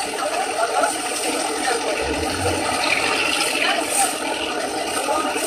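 Motorboat engine running steadily with water noise, heard from aboard the boat.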